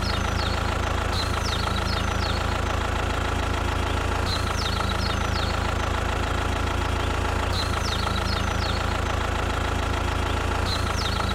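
Tractor-style engine idling steadily with an even low hum, with short high chirps coming in clusters every few seconds.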